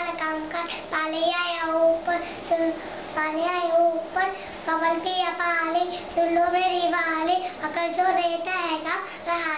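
A young boy singing a Hindi song unaccompanied, holding long notes in a steady, wavering melody with short breaks for breath.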